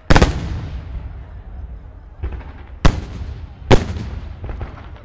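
Aerial fireworks shells bursting: three loud bangs, one right at the start, one near three seconds and one just under four seconds, each trailing off, with fainter pops in between.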